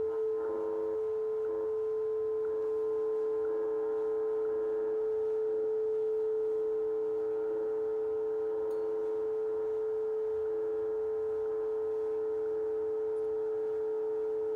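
Shortwave receiver speaker playing WWV on 10 MHz: a steady pure tone, the station's audio subtone, with fainter higher tones, as a Tektronix 180A crystal oscillator is brought to zero beat with the WWV carrier. A slow pulsing in level at the start settles into a steady tone.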